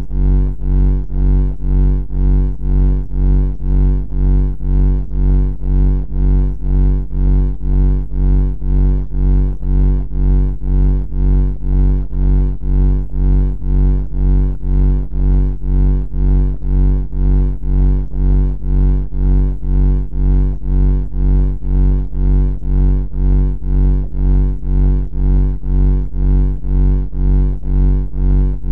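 A loud, low buzzing drone with a steady pitch, pulsing evenly about one and a half times a second.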